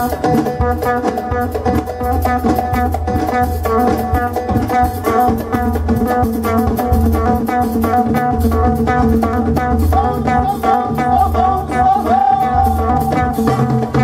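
Live Moroccan chaabi band playing: frame drums and hand drums beat a fast, steady rhythm over electric bass and a sustained keyboard melody that bends in pitch near the end.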